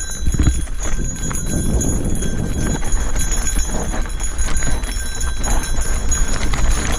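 Mountain bike clattering down a loose, rocky trail: tyres knocking over stones and the bike rattling in a dense, uneven stream of clicks and knocks, over a steady low rumble.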